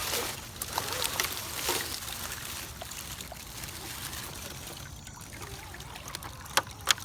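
Stream water trickling, with irregular crunching clicks of footsteps along a trail over it and two sharper clicks near the end.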